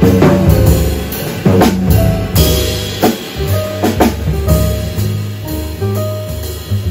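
Jazz piano trio playing: drum kit, grand piano and plucked upright bass together. Drum strikes stand out in the first half, and the drumming lightens about two and a half seconds in while the piano and bass notes carry on.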